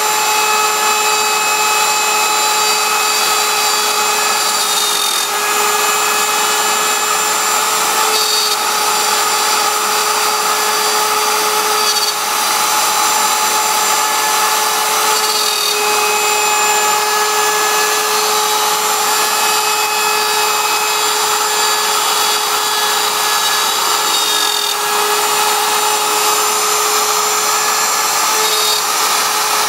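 CNC router spindle running with a steady high whine while its bit cuts through wood, a continuous rough cutting noise under the whine. The pitch of the whine shifts slightly every few seconds.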